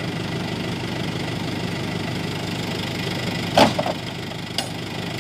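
Lorry engine idling steadily, with a single sharp knock about three and a half seconds in and a fainter click a second later, from palm fruit bunches being loaded.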